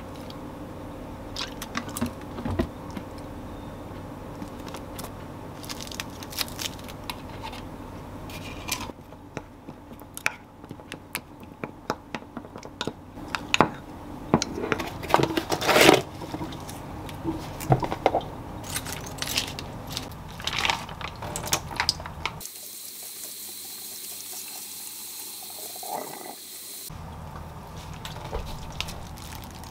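A wooden spoon stirring thick chili-paste sauce in a ceramic bowl: scattered clinks and wet scrapes, busiest past the middle. Later, a steady hiss of water running at a kitchen sink, then noodles handled in a mesh strainer over a basin.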